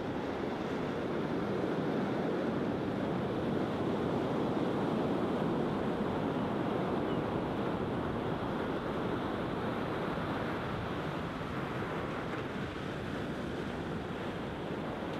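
Small sea waves breaking and washing up a flat sandy beach, a continuous rush of surf that swells a little about four seconds in and eases off later.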